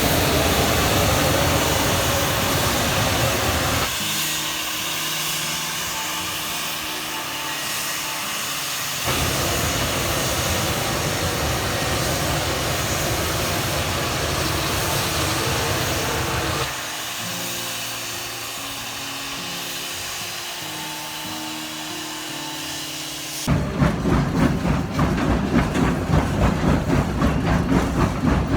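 Steam locomotive No. 491 hissing steam, the noise switching abruptly several times between louder and quieter stretches. Near the end a steady rhythmic beat of about two to three pulses a second sets in.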